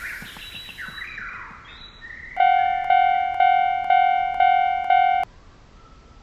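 Animated railroad crossing bell ringing "kan-kan" about twice a second for some three seconds, then cutting off suddenly. Before it comes a run of short falling cartoon sweep effects.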